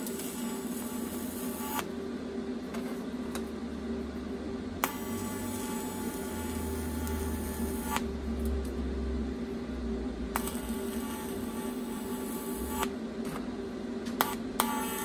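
TIG welding arc buzzing in four separate bursts of a few seconds each, over a steady hum; the first stops about two seconds in, the others start around five and ten seconds and just before the end.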